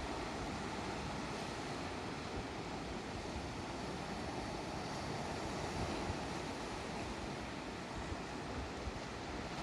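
Sea waves washing against the shore in a steady rush, with wind buffeting the microphone in low, gusty rumbles.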